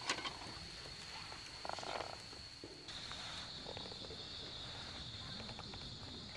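Night insects trilling steadily at a high pitch, the tone dipping slightly about three seconds in, with a short rattling call about two seconds in.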